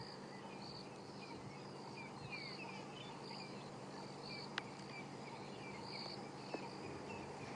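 Faint bush ambience: an insect calling in short trills repeated about once or twice a second, with small bird chirps and a steady low hum underneath.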